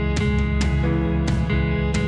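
Background music with guitar strumming, regular strokes about twice a second over held chords.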